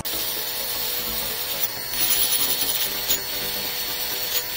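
Rotary tool with a conical grinding stone grinding the steel of old pliers: a steady, even grinding noise.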